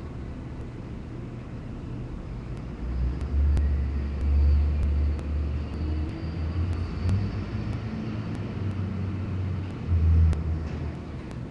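A low, uneven rumble swells about three seconds in, peaks twice and fades near the end, over a steady outdoor background with faint regular ticking.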